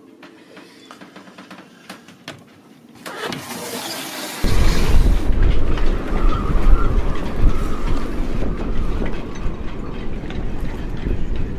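Strong wind gusting onto the microphone. A rising hiss about three seconds in gives way suddenly to a loud, irregular low buffeting rumble that continues, with a few faint clicks in the quieter opening seconds.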